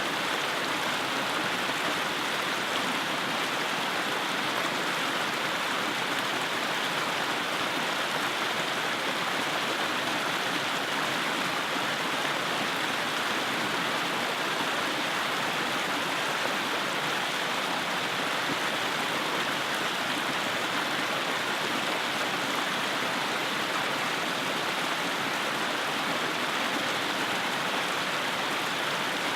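Mountain creek rushing between rocks: a steady, even rush of water.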